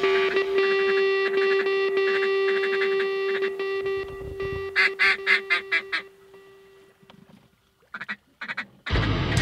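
Ducks quacking: a quick run of about six quacks around five seconds in, then a few more near the end. Under the first part a held music note fades out, and the music starts again just before the end.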